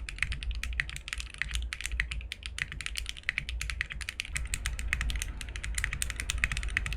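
Fast, continuous typing on a mechanical keyboard fitted with Akko x HMX Stellar Rose switches, a dense run of clacky keystrokes with no pauses.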